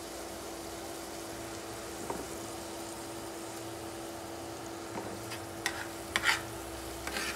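Minced garlic sizzling steadily in hot oil in a frying pan, being fried until fragrant. A few sharp clicks come in the last couple of seconds as a spatula stirs it.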